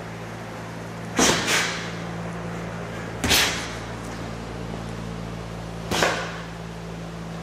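Boxing gloves landing punches in sparring: four sharp smacks, a quick pair about a second in, another a couple of seconds later and a last one near the end, over a steady low hum.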